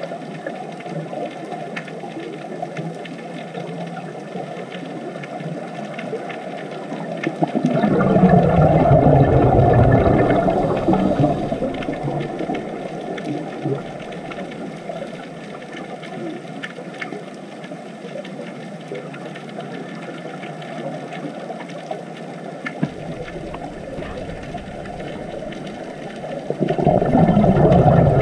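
Muffled underwater water noise picked up by a camera's housing, swelling twice into a louder low rush, about eight seconds in and again near the end.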